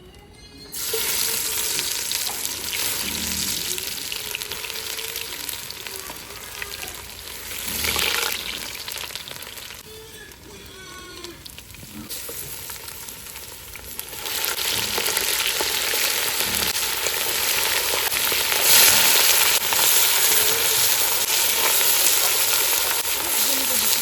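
Beef innards frying in a hot pan, a dense sizzle. It starts about a second in, eases off for a few seconds in the middle, then comes back louder.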